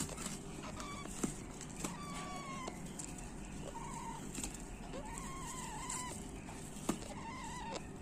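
Baby parakeet chicks giving faint, soft calls: four or five short cries, each about half a second to a second long, with a few light taps among them.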